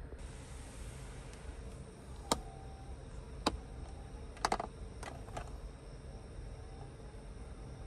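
A handful of sharp clicks, including a quick pair near the middle, over a steady low rumble.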